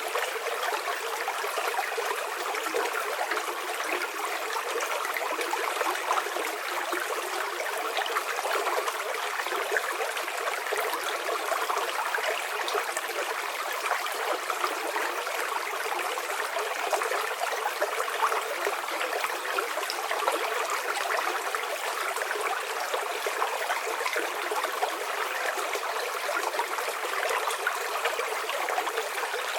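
River water flowing steadily, an even rushing and babbling with no breaks.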